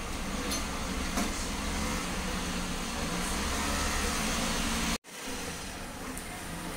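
Steady low rumble under a hiss, with a few light clicks. About five seconds in it cuts off abruptly, then comes back fainter.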